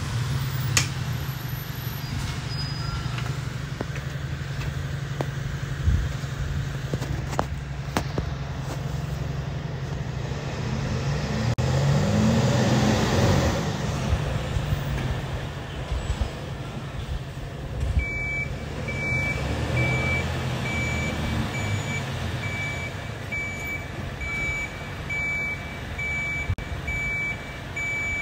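Mercedes-Benz Arocs rear-loader garbage truck's diesel engine running, swelling louder around halfway as the truck manoeuvres, with a few sharp knocks in the first third. About two-thirds through its reversing alarm starts: a high beep repeating at a steady rate as the truck backs up.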